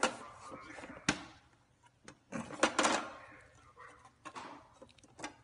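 Clear plastic flap door of a small-animal cage clacking and rattling as a cat pries at it: a run of irregular knocks and rattles.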